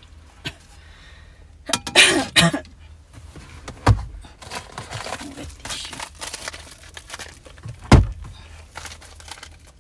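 Close handling noise inside a car: a short, loud rustling burst about two seconds in, then two dull thumps, about four and eight seconds in.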